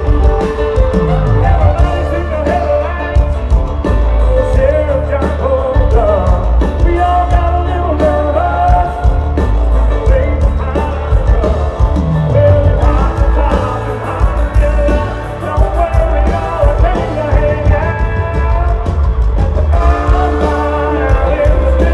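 Live country band playing loud, with a male lead singer over drums and a heavy bass line.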